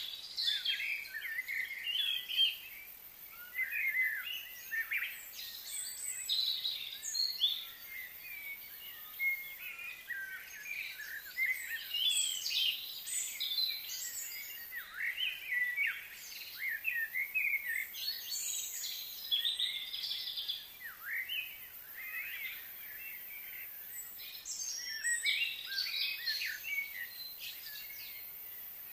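Small birds chirping and calling, with many short, quick notes overlapping almost without pause, over a faint steady high hiss.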